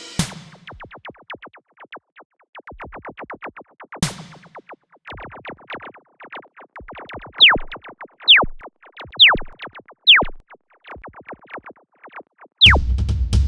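Synthesized electronic sound effects: fast runs of short clicks, with several quick tones falling steeply in pitch from about seven seconds in, and a heavy bass sound entering near the end.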